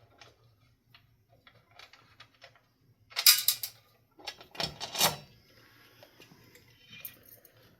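Scattered clicks and metallic clatter of ceiling-fan hardware (screws, bolts and mounting parts) being handled. Two louder clattering bursts come about three and five seconds in.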